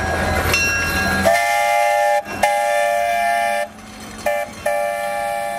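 Steam locomotive whistle sounding a chord of several steady tones in four blasts: two long ones, a short toot, then another long one held on. It comes in after about a second of low rumbling.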